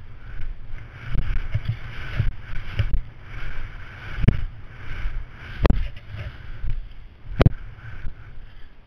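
Skis carving turns through fresh snow, a swish that swells and fades about once a second, over the low rumble of wind on a GoPro microphone. Three sharp knocks stand out, about four, six and seven seconds in.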